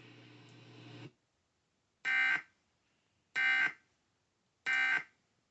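Emergency Alert System end-of-message code: three short, identical bursts of buzzing data tones, a little over a second apart, after a faint second of broadcast hum. The bursts signal that the tornado warning message has ended.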